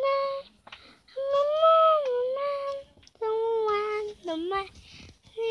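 A young girl singing without words, a few long held notes that bend slightly in pitch, with short breaks between them.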